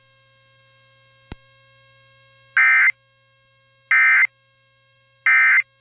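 Emergency Alert System end-of-message data bursts on NOAA Weather Radio: three identical short, buzzy digital tone bursts evenly spaced about a second and a half apart, after a faint click. They mark the end of the alert message.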